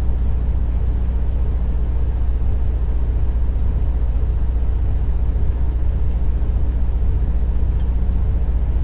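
Semi-truck diesel engine idling: a steady low drone that does not change, heard from inside the sleeper cab.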